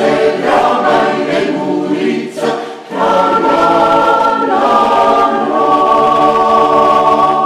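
Mixed choir singing a cappella: a few short phrases, then a long held chord from about three seconds in.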